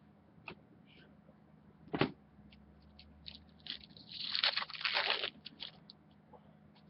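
Trading cards being handled: a single sharp tap about two seconds in, then a couple of seconds of crackling, rustling paper and plastic handling.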